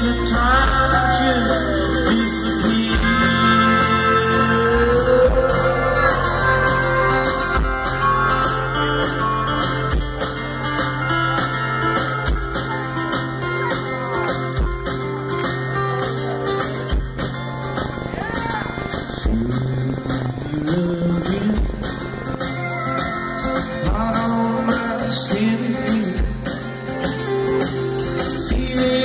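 Live rock band playing: acoustic guitar, electric bass, drums and keyboard, heard from the audience.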